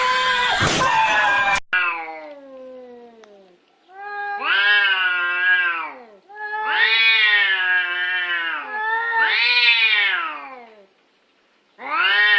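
A cat yowling: long, drawn-out wavering calls, five of them, each about two seconds and falling in pitch at the end. Before them a loud burst of noise and screaming cuts off abruptly about a second and a half in.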